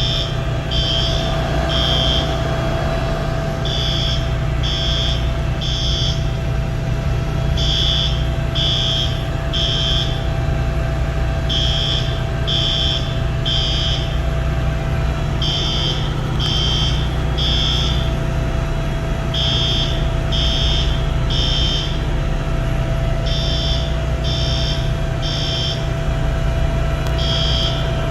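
Building fire alarm sounding the three-beep temporal evacuation pattern: three short, high beeps and a pause, repeating about every four seconds, over a steady low rumble.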